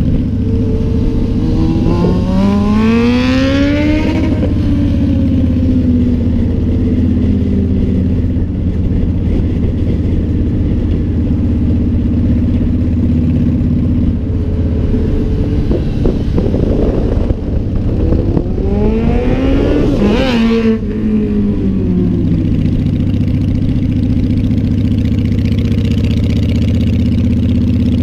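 Cruiser motorcycle engine running steadily under way, heard from the rider's seat. Twice an engine note climbs and then falls away, a couple of seconds in and again about two-thirds through.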